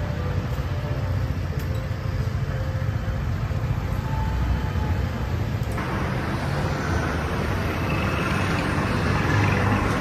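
Road traffic: cars and scooters passing, a steady rumble that grows brighter and a little louder about six seconds in.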